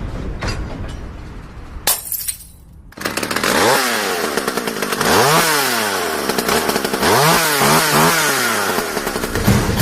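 A small engine revved up and down in pitch several times, running loud from about three seconds in. Before it come a fading crash tail and a sharp crack.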